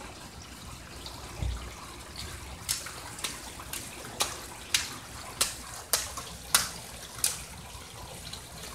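A toddler's shoes slapping and splashing in a shallow rain puddle on asphalt: about eight sharp splashes roughly half a second apart from a few seconds in, over the steady trickle of rainwater running from a downspout.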